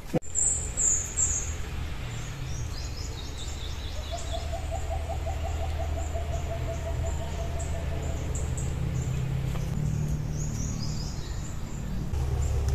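Birds calling. There are short high chirps and a falling trill in the first few seconds, then a run of quick repeated lower notes, gently falling in pitch, for about four seconds, all over a steady low rumble.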